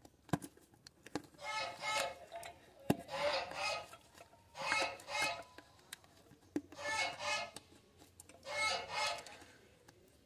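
Rubber clutch-fork dust boot on a Renault squeaking and rubbing against the gearbox housing as it is pressed and worked into place by hand: five squeaky rubbing strokes, each under a second, with a few sharp clicks in the first three seconds.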